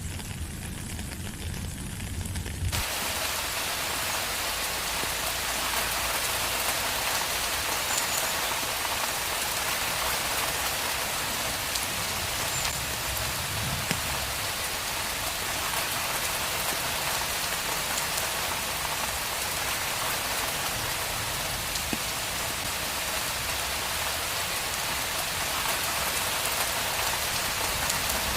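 Steady rain falling on a street, an even hiss of many drops. For the first few seconds the rain is thinner with a low rumble under it, then about three seconds in it switches to a fuller, brighter patter that holds steady.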